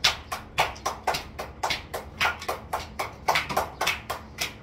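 Hands clapping rapidly and somewhat unevenly, about four claps a second.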